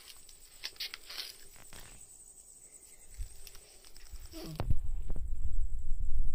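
Faint light taps and scuffs of a cat moving close to the phone. About four and a half seconds in comes a short low cat call, then loud low throbbing purring right against the microphone.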